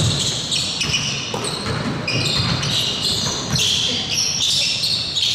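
Basketball game play on a hardwood court: many sneakers squeaking in short, high-pitched chirps, over repeated thuds of the ball bouncing.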